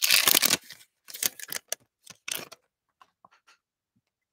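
Plastic trading-card pack wrapper crinkling as it is torn open and the stack of cards pulled out, first a dense rustle and then a few short crinkles that thin out to faint card clicks.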